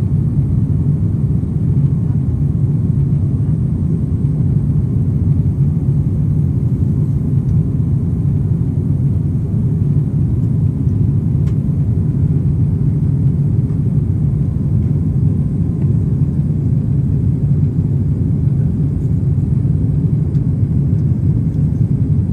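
Steady low rumble of an airliner cabin, engine and airflow noise heard from inside the plane, unchanging throughout.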